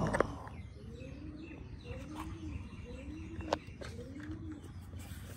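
A bird cooing, a low rising-and-falling call repeated about once a second, with a few sharp clicks, the loudest a little past halfway.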